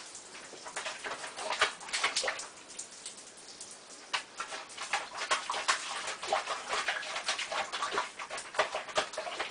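Dishes clattering and water splashing in a sink: a rapid, irregular run of short clinks, knocks and splashes.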